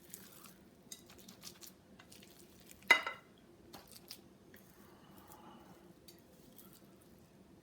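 A kitchen utensil scraping and tapping a sticky oat and peanut butter mixture out of a bowl onto a metal cookie sheet, with light scattered clicks and one sharp ringing metal clink about three seconds in.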